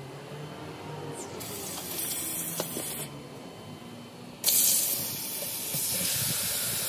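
Two hissing sprays, the first about a second and a half long and the second louder and longer, starting about four and a half seconds in: a Volvo truck's AdBlue injector being test-sprayed off the engine.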